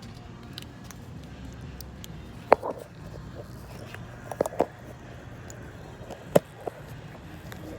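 Hard objects being handled: a handful of sharp clicks and knocks scattered over a low steady hum.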